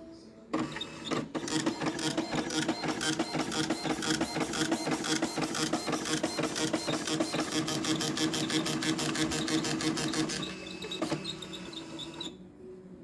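Epson LX-310 9-pin dot matrix printer printing: the print head hammers out a dense, rapid chatter of dots over a steady motor hum, starting about half a second in and stopping near ten seconds. A quieter mechanical stretch with a single click follows before it stops.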